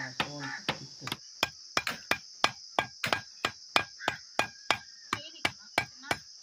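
Iron sickle blade chopping a short split piece of bamboo against a wooden stump: sharp, evenly spaced strikes, about three a second.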